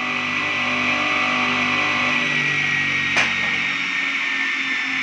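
Homemade table saw driven by a repurposed 1800 W angle-grinder motor, running with a steady high whine that sags slightly in pitch. A short click about three seconds in.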